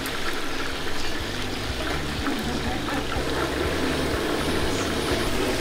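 Prawn fritters deep-frying in a wide wok of hot oil: a steady, dense sizzle.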